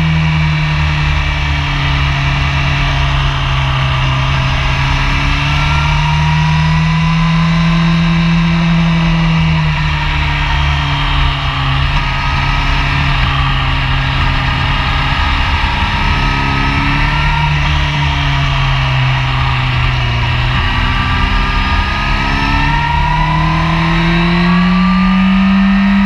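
Honda sport bike's engine running hard on a track lap, heard from an onboard camera with wind rush over the microphone. The engine note rises and falls slowly as the rider works the throttle through corners, climbing again near the end.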